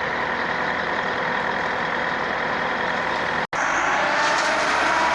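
Heavy loading equipment's engine running steadily under a constant machine hum. The sound cuts out for an instant about three and a half seconds in, then returns slightly louder with a faint, slowly rising whine.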